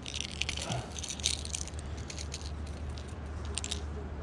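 Irregular light clicking and rattling of a hard-plastic jerkbait and its treble hooks as they are worked by hand out of a small bass's mouth.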